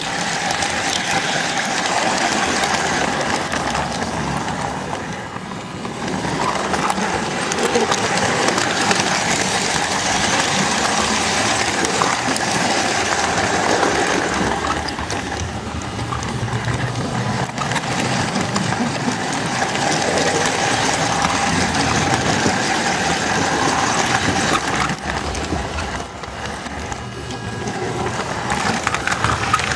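S-gauge Flyonel Docksider switcher running, heard from the flat car it pushes: a steady whine from its electric motor and gearing over the rumble of metal wheels on the track. The sound dips briefly twice.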